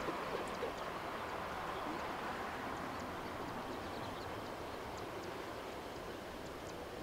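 Distant jet engine noise of a four-engined Boeing 747-400 freighter at takeoff power on its takeoff roll: a steady rushing rumble that eases slightly.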